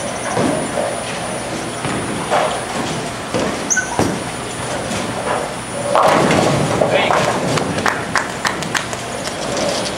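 A bowling ball lands on the lane with a thud about four seconds in and rolls. About two seconds later it hits the pins, the loudest sound here, and the pins clatter in a run of sharp knocks for a few seconds. Bowling-alley din and chatter run underneath.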